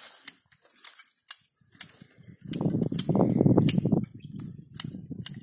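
Sharp, irregular clicks and crackles of dry custard apple branches being handled, with a louder low rushing noise for about a second and a half in the middle.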